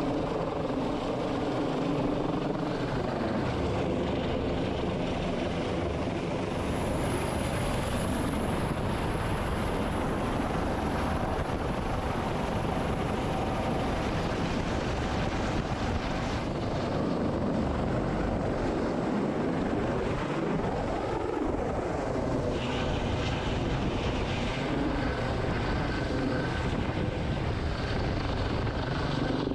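MH-65 Dolphin helicopter running, a steady, continuous rotor and turbine noise, with a thin high whine over it for a stretch in the first half.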